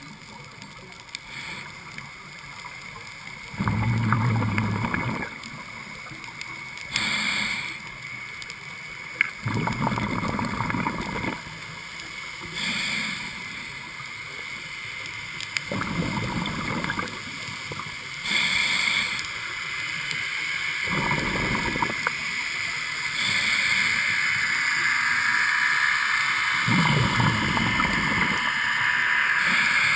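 Scuba diver breathing through a regulator: short hissing inhalations alternate with longer, lower bubbling exhalations, one every few seconds. The uploader takes the breathing to show the diver shivering with cold.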